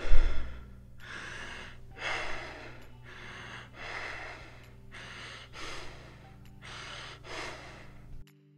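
Kussmaul breathing: deep, rapid, regular breaths, a full inhalation followed straight away by a full exhalation, a breath sound nearly every second. This pattern is the sign of metabolic acidosis such as diabetic ketoacidosis, the body washing out carbon dioxide. A loud low thump comes right at the start, and the breathing stops shortly before the end.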